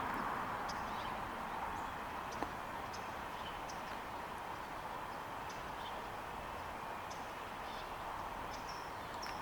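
Small birds chirping: short, high chirps scattered every half second or so, some with a quick downward slur, over a steady hiss of outdoor background noise.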